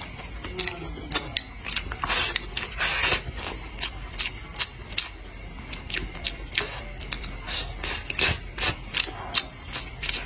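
Close-miked chewing and mouth sounds: a run of irregular wet clicks and smacks as food is chewed.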